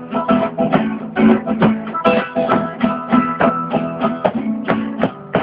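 Guitar strummed in a quick, steady rhythm, chords played without singing, with a final strum ringing out at the very end.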